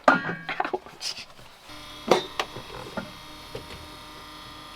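A sharp knock and some clatter, then a steady electric-sounding hum starts a little under two seconds in and holds, with two more knocks shortly after it begins.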